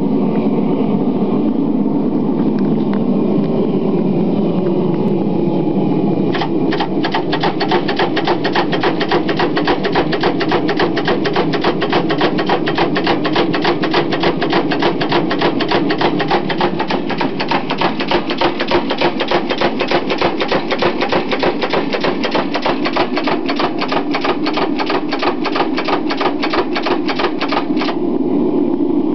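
Early Iron Kiss power hammer striking a large hot damascus billet in a fast, even run of blows to set the forge weld. The blows start about six seconds in and stop shortly before the end, over a steady low rumble.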